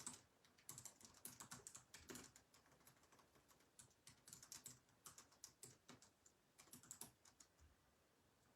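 Faint typing on a computer keyboard: irregular clusters of quick key clicks that stop near the end.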